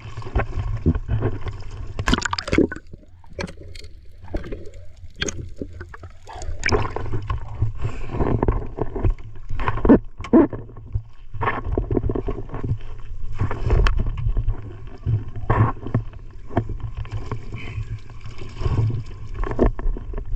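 Water splashing and sloshing against a small wooden outrigger boat as a fishing net is hauled in over the side, in irregular splashes and knocks over a steady low rumble.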